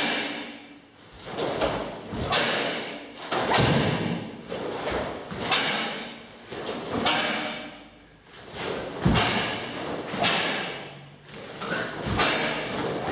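A karate kata performed barefoot on foam mats: sharp snaps of the cotton gi and thuds of feet landing, about one a second, echoing in a large hall.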